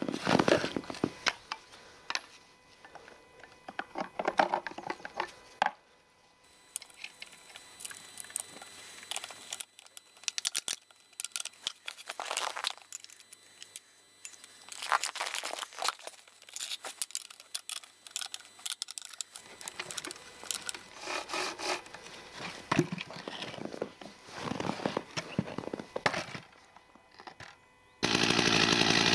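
Hand work on a chainsaw's bar and chain while a new saw chain is fitted: bursts of clicks, metal rattles and scraping, separated by quiet pauses of a few seconds. About a second before the end, a loud steady noise cuts in abruptly.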